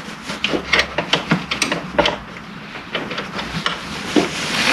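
Wrench clicking and scraping against metal in an irregular run of short, sharp taps as it is fumbled onto the 13 mm nut of a Land Rover Discovery 3 TDV6 alternator's positive terminal.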